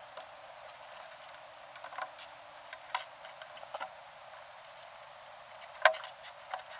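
Scattered small clicks and taps of hands handling wires and small parts on a workbench, with one sharper click about six seconds in.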